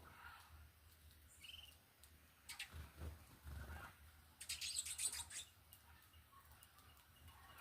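Small wild birds at a feeder giving faint, scattered chirps and short calls, with a burst of rapid high chirps about halfway through.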